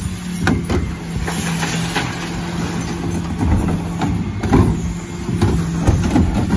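Dennis Elite 6 refuse lorry running with a steady hum while its Terberg bin lifter raises and tips a wheelie bin of recycling, with several sharp knocks and clatters from the bins and lifter.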